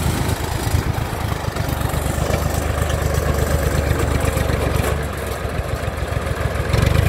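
IMT 558 tractor's diesel engine running steadily under load as it hauls a mounted three-furrow plough up out of the field onto the road. The engine note eases about five seconds in and picks up again near the end.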